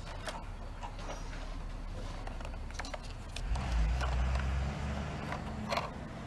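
Handling noise from a plastic toy fire engine being picked up and turned over in the hands: scattered light clicks and knocks. A low rumble swells up about halfway through.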